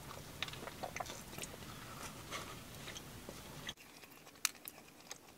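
Soft chewing and mouth clicks of two people eating donuts. The background hiss drops away suddenly about three-quarters of the way through.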